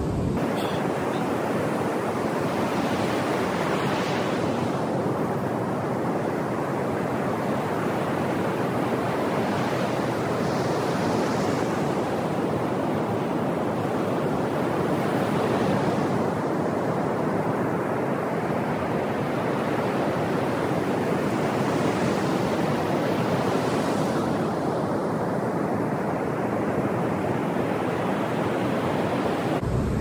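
Ocean surf washing onto the beach: a steady rush of breaking waves that swells every few seconds as a wave comes in.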